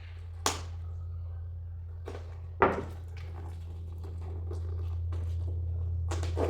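Two sharp knocks, one about half a second in and one a couple of seconds later, as products are handled and set down during unpacking. A steady low hum runs underneath and slowly grows louder.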